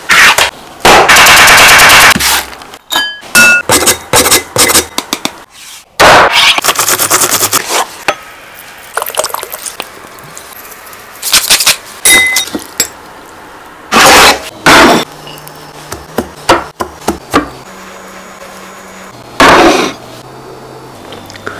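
A run of kitchen food-prep sounds: a blender whirring briefly about a second in, then sharp knocks, clinks and scrapes of a knife, utensils and glass bowls on a wooden cutting board.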